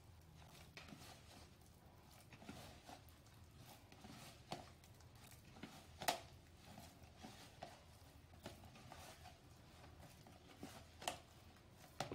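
Faint, irregular soft squelches and clicks of hands squeezing and kneading mashed banana into cassava flour in a plastic tub, with a sharper tick about six seconds in over a low background hum.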